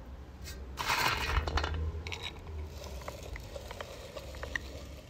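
Hand-cranked meat grinder crushing walnuts into meal: a burst of crunching about a second in, then scattered small metallic clicks as the handle keeps turning.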